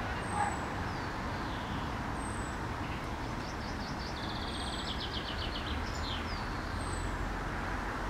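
Steady distant traffic rumble, with small songbirds calling over it: a thin, high note falling in pitch about every two seconds and a fast trill of about ten notes near the middle.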